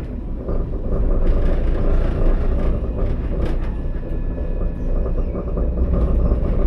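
Alstom Citadis tram running along the rails: a steady low rumble of wheels and running gear, with a few short clacks and a faint high whine in the second half.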